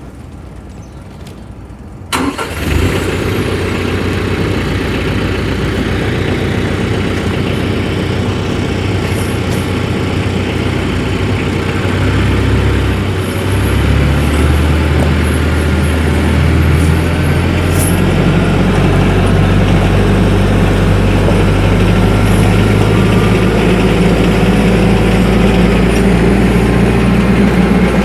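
TYM 474 compact diesel tractor engine starting up about two seconds in, then running steadily, its engine speed changing a few times.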